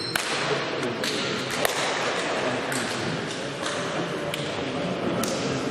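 Basketball game in a sports hall: scattered sharp knocks and taps of a ball and feet on the court over a steady murmur of players' and spectators' voices.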